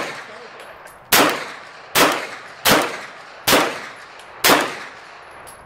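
CZ Scorpion Evo 3 9mm carbine fired semi-automatically: five single shots at a steady pace, roughly three-quarters of a second apart, each sharp crack followed by a short echo. The tail of one more shot is heard at the very start.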